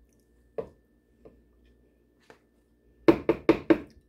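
A spoon scooping Cool Whip, with a few light clinks, then rapped four times in quick succession against the rim of a blender cup to knock the Cool Whip off.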